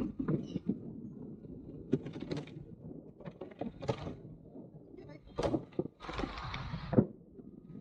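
Motorcycle ride heard from the rider's helmet microphone: a steady low rumble of wind and engine with scattered knocks and rattles, and a burst of rushing noise lasting about a second, around six seconds in.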